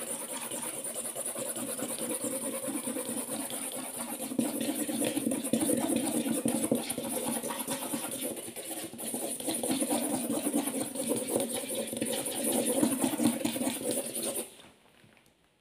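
Fonix marker tip scribbling fast across paper, a dense scratchy rubbing of many quick back-and-forth strokes, which stops suddenly near the end.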